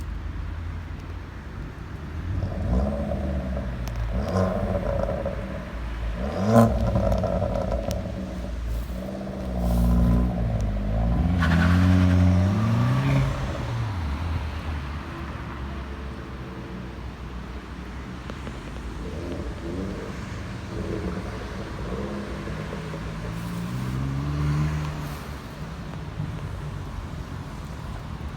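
Straight-piped Volkswagen Scirocco's four-cylinder engine revved up and down several times through its loud exhaust, with a sharp crack about six seconds in.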